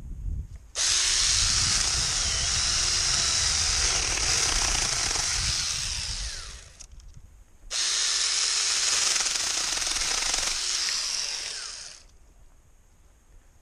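Hancaner cordless mini chainsaw cutting wood in two long runs of about six and four seconds. Each starts abruptly when the trigger is pulled and dies away as it is released.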